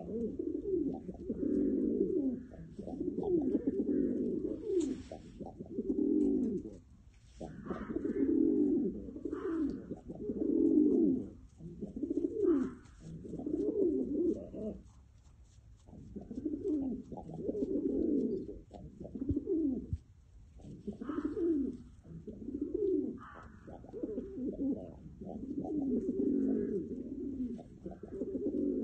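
Domestic pigeons cooing over and over: deep, rolling coos in phrases of one to two seconds, with brief pauses between them.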